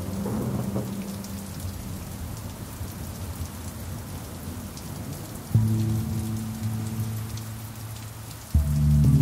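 Steady rain falling, with low, ringing pan drum notes: one fading early on, a new note struck about five and a half seconds in, and another near the end.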